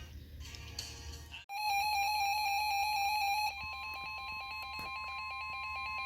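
Emergency Alert System tones from a weather radio broadcast. About a second and a half in, a buzzy electronic data warble (the SAME alert header) starts abruptly and plays loudly for about two seconds. Then a steady single-pitch warning alarm tone sounds over it for the rest: the signal that a new alert message is about to be read.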